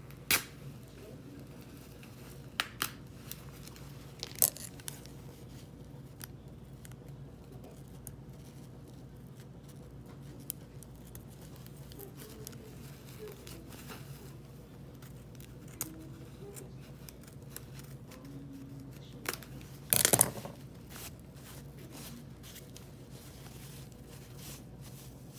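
Kitchen shears snipping through red cloth: a few short, sharp cuts in the first seconds, then a longer, louder run of cutting about twenty seconds in. A low steady hum lies underneath.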